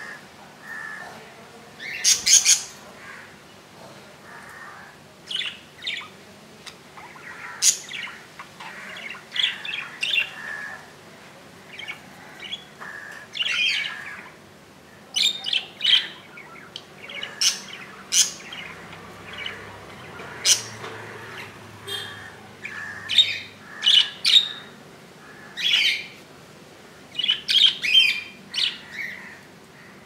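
Budgerigars chirping and squawking: short, sharp calls that come in irregular clusters.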